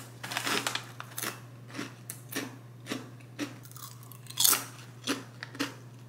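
Thin, crisp cassava chips crunching as a person chews them with the mouth held close to the microphone: a series of sharp crunches about every half second, the loudest about four and a half seconds in.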